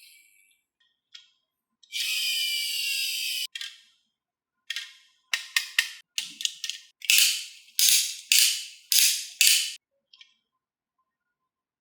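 Marbles rolling along a HABA wooden marble run, a steady rumbling run of about a second and a half. Then a quick series of clicks, followed by about six louder clacks as the marbles drop and knock through the wooden track pieces.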